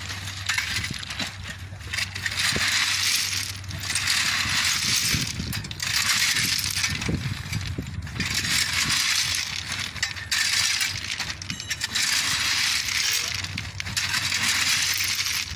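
Crushed-stone railway ballast clinking and scraping as it is raked and pushed in under the track with long-handled hand tools, in repeated rattling strokes a second or two long.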